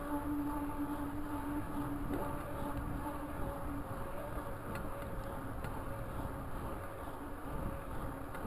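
Mountain bike rolling along a paved trail: a steady buzzing hum from the tyres on the asphalt, over wind rumble on the microphone.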